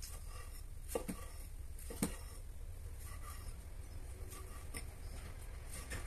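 Serrated knife cutting tomatoes on a thick wooden chopping block: sharp knocks of the blade on the wood, two close together about a second in and a louder one at two seconds, then lighter taps, over a steady low hum.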